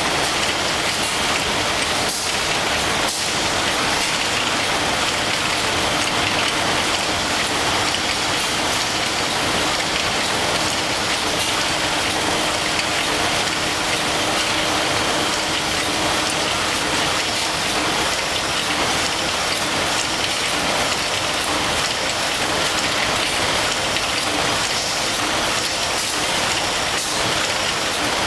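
Automatic facial tissue production line running: a steady, dense, hissing clatter of the conveyor and machinery, with a faint hum underneath.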